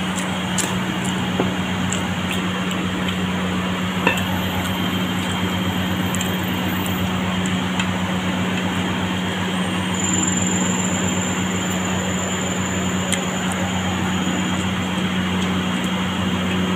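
Steady machine hum and rush of kitchen ventilation fans, with a few light clicks of plate and utensils. A faint high whine joins about ten seconds in for a few seconds.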